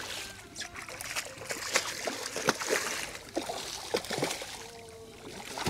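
Water splashing and lapping beside a small fishing boat, with scattered sharp clicks and knocks.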